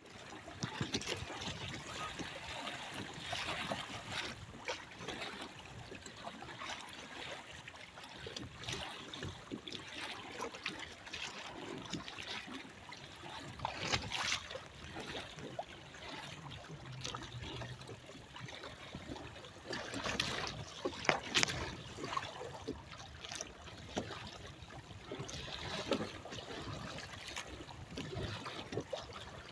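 Water splashing and trickling against the hull and outrigger floats of a sailing kayak under way, in an uneven run of small splashes.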